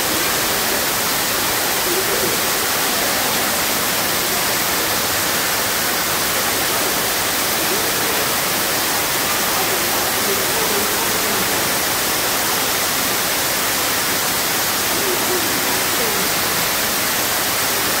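Small waterfall: thin streams of water falling down a rock face and splashing, a steady, even rush. Faint voices can be heard behind it now and then.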